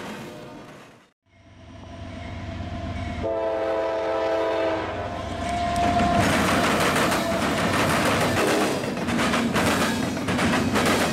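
A diesel freight locomotive's multi-note air horn sounds a chord for about a second and a half over a low engine rumble, with a short extra horn note just after. Then a double-stack container train passes close, its wheels clattering over the rails.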